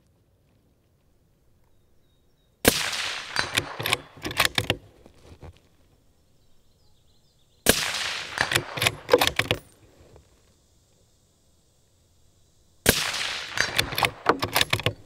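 Three shots from a 6.5 Creedmoor bolt-action rifle, about five seconds apart. Each is followed by a second or two of echo and several sharp clicks.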